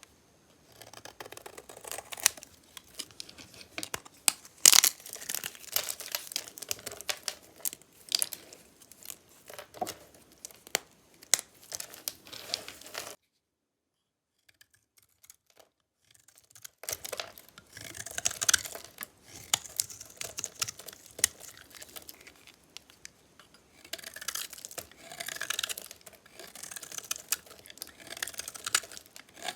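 Knife cutting and scraping through dry, metallic-painted bar soap: crisp crackling and crunching strokes with sharp snaps. The sound breaks off for a few seconds of silence about halfway, then the cutting resumes.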